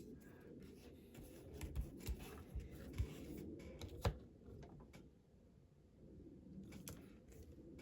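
Faint, scattered clicks and taps of small parts and tools being handled on a workbench, a few sharper ticks among them, over a low hum.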